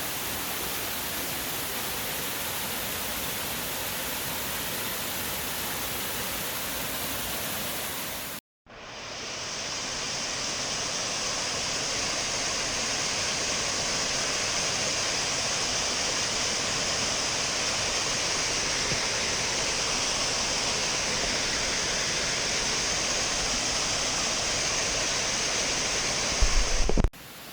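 Waterfall, a steady rush of falling water. About a third of the way in it cuts off briefly, then returns as a louder, hissier rush. A few low thumps come near the end.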